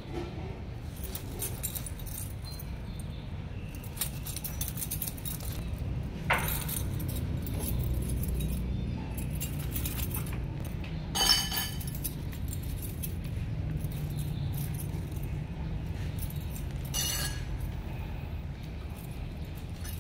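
Pink plastic bag toy crinkling and rustling as it is waved, in scattered short bursts over a steady low background rumble.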